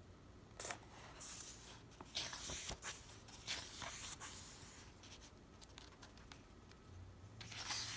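Pages of a thick hardcover book being turned and handled, several short papery rustles, with another rustle near the end.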